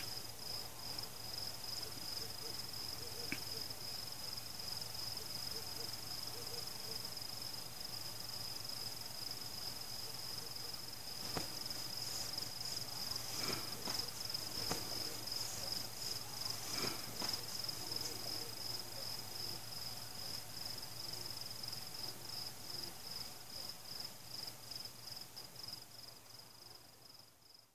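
Crickets chirping in a steady night chorus on one high pitch, with a few faint clicks a little before the middle. The chorus fades out near the end.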